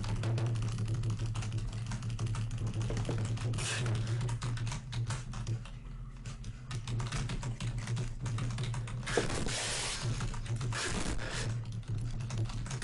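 Pizza cutter run back and forth across a bare wooden pizza peel in quick strokes, making rapid clicking and scraping. A steady low hum starts suddenly at the outset and runs underneath.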